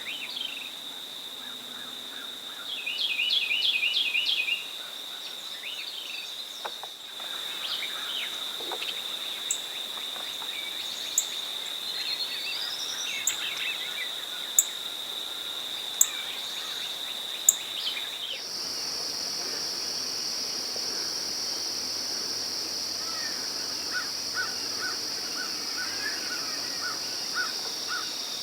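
Morning outdoor ambience: a steady high-pitched insect drone under songbird song. The loudest part is a burst of rapid repeated trilled notes about three seconds in, with scattered chirps later. A few sharp ticks come in the middle stretch, and the drone shifts higher about two-thirds of the way through.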